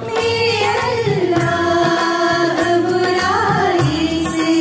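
Music from a sung devotional prayer: a held, wavering melody line over a steady hand-drum beat, with no words sung.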